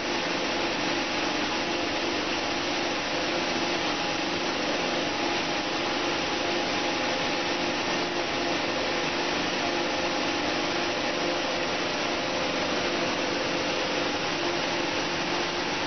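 Automatic cookware production line machinery running: a steady mechanical whir with a few constant hum tones, unbroken and without strokes or impacts.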